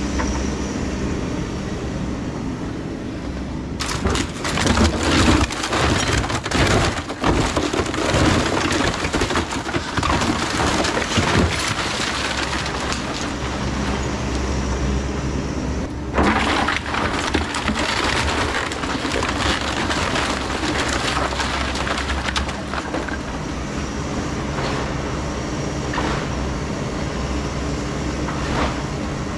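Takeuchi TB2150 excavator's diesel engine running steadily while its bucket and thumb tear into an old wood-frame house, with wood cracking and debris crashing down. A long stretch of crashing starts about four seconds in, and another burst comes near the middle.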